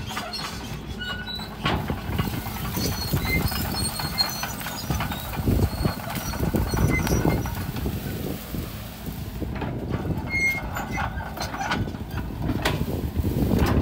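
Sumitomo SH130-5 hydraulic excavator's diesel engine running as it works through brush, with irregular knocks and crunching thumps throughout.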